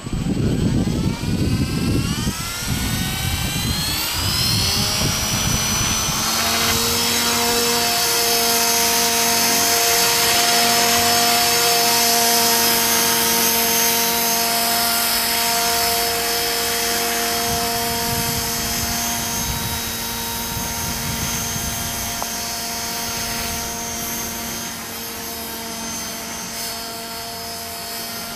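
Belt CP collective-pitch electric RC helicopter spooling up: a whine rising in pitch over the first few seconds, then a steady high whine of the motor, belt drive and rotor as it flies. Wind buffets the microphone in gusts.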